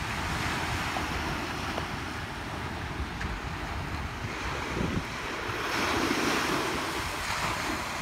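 Small waves breaking and washing up a sandy beach, with a louder surge of surf about five and a half seconds in. Wind buffets the microphone with a low rumble underneath.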